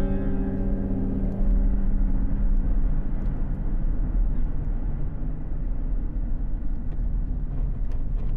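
Steady low rumble of a car driving, heard from inside the cabin, while music fades out over the first two seconds.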